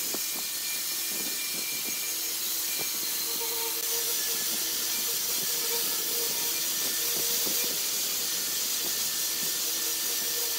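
Electric angle grinder with an abrasive disc running against the steel edge of a cut motorcycle brake disc. It makes a steady hiss of grinding over the motor's constant whine, getting slightly louder about four seconds in.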